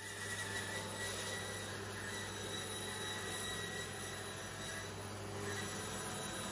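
Felder bandsaw running while a chestnut board is fed through it: a steady machine hum with a high, even whine.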